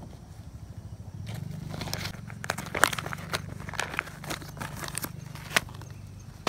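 A plastic bag crinkling, with dry leaves and sandy soil rustling and crackling as seeds are tipped out onto the ground. Irregular sharp clicks start about a second in, over a steady low hum.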